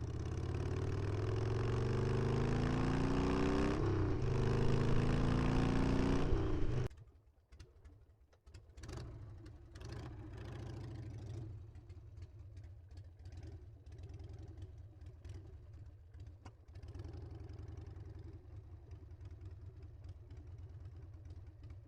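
Harley-Davidson Sportster V-twin motorcycle engine accelerating, its pitch rising, dipping once at a gear change about four seconds in and rising again; about seven seconds in the throttle shuts off suddenly and the engine drops to a low, steady rumble.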